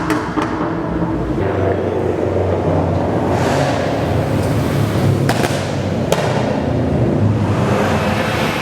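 Vehicle engines running, with two sharp pops about five and six seconds in.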